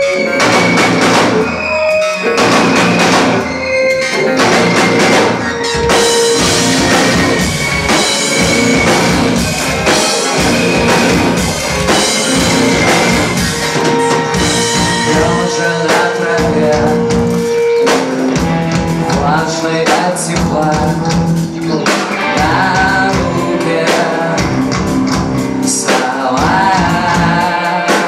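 Live rock band playing loudly: drum kit, electric guitar, bass guitar and keyboard together.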